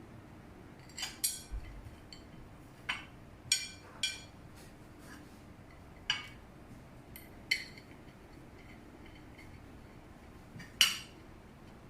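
Hard parts of a tiered cake-plate set clinking and knocking together as they are handled, about nine separate clinks at uneven intervals, some with a short ring. The loudest comes near the end.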